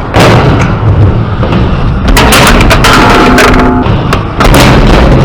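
Skateboard wheels rolling loud and close on concrete, with several sharp board impacts about two seconds in and again near the end, and a brief pitched squeal about three seconds in.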